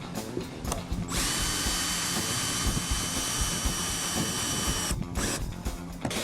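Cordless drill/driver running steadily for about four seconds with a high whine, driving a GRK R4 multi-purpose screw into wood without pre-drilling, then stopping abruptly.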